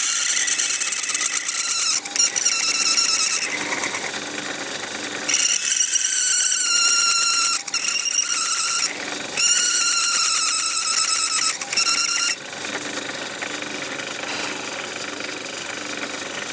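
Small metalworking lathe running, with a high-pitched squeal as the cutting tool bites into the spinning plastic chimney blank while cutting a taper. The squeal comes in several bursts of a few seconds each and stops about twelve seconds in, leaving the lathe's steady running.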